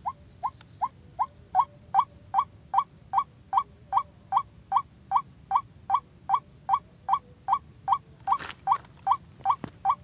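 White-breasted waterhen calling: a steady series of short, rising notes, about two and a half a second, growing louder over the first two seconds. A soft knock comes about eight and a half seconds in.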